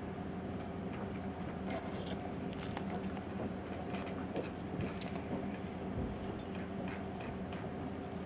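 Faint handling noise from a Casio G-Shock Frogman wristwatch turned over in the fingers: small scattered clicks and rubs of its resin strap and case. Under it runs a steady electrical hum.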